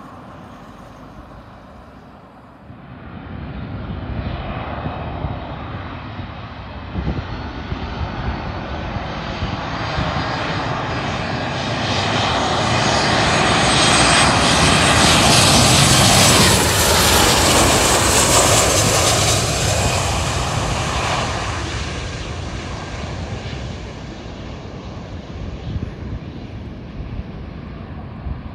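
Jet engines of a Smartwings Boeing 737 passing low overhead on approach with its gear down. The rumble and whine build from a few seconds in to a loud peak in the middle, then fade as the jet moves away down the runway.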